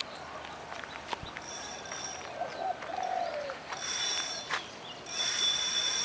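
Doves cooing, with three short bursts of a high whirr from a fishing reel being wound while a big catfish is played; the last burst is the longest and loudest.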